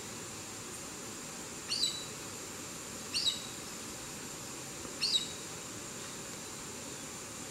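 Chestnut-eared aracari calling: three short, high calls a second and a half or so apart, over a steady hiss.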